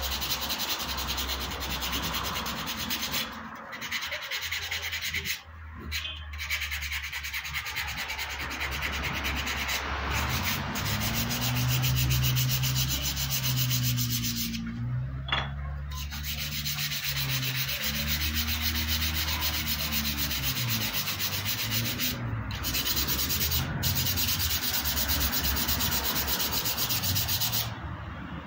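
Hand sanding of a small wooden drawer pull with 120-grit sandpaper: quick back-and-forth strokes of paper rubbing on wood, broken by a few short pauses.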